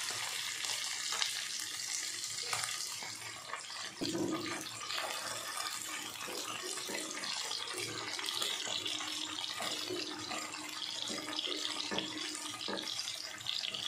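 Pabda fish frying in hot mustard oil in a nonstick wok, a steady sizzle throughout. A few short knocks and scrapes of a wooden spatula come through as the fish are turned.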